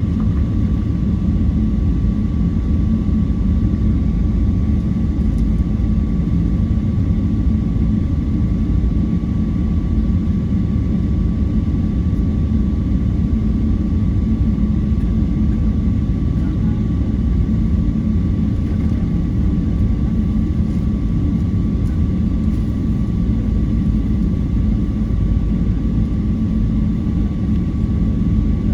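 Airplane engine noise: a loud, even low rumble with a faint steady high whine, unchanging throughout.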